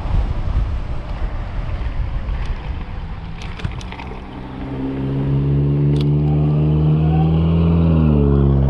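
Wind buffeting the camera microphone at riding speed. About halfway through it gives way to a loud, steady low motor hum that dips slightly in pitch near the end.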